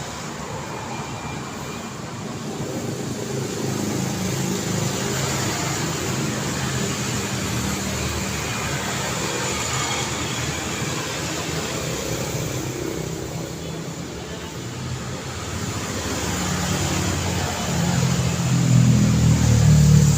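Road traffic: cars passing by, a steady rumble of engines and tyres that swells and fades. One vehicle passes close near the end, the loudest moment.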